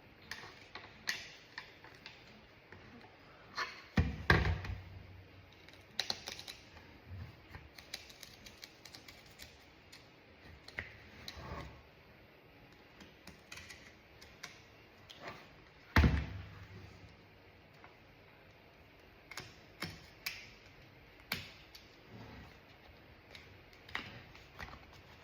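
Razor blade cutting the old stitching out of a leather steering wheel cover: scattered small clicks and ticks as the threads are picked and cut. Two louder thumps come in among them, one about four seconds in and another about sixteen seconds in.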